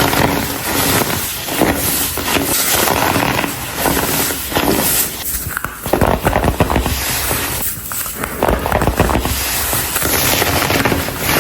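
Pressed blocks of dyed baking soda being crushed and crumbling, a dense, continuous crunching and crackling of the powdery chunks breaking apart.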